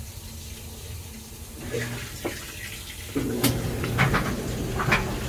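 Amana clothes dryer started about three seconds in: its drum motor comes on and runs with a steady hum, with a few sharp clicks over it. Water from a running washing machine can be heard underneath.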